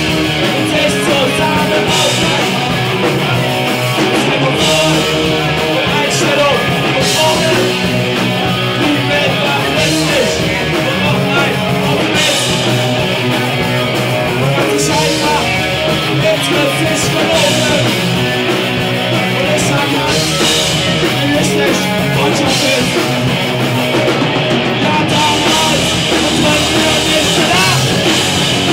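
Live rock band playing loud: electric guitars and a drum kit together, with the high end surging every couple of seconds.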